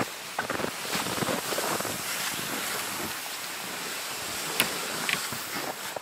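Wind blowing across the microphone as a steady rushing noise, with a sharp click about four and a half seconds in.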